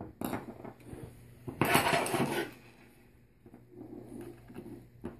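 Hard plastic trimmer starter parts being handled on a tabletop: a few clicks, then a clattering scrape about a second long starting about a second and a half in, then lighter handling noise.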